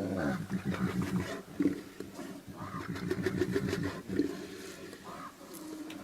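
An animal's low, rough, rasping vocal sound made of rapid pulses, coming in a few swells over the first four seconds and then fading.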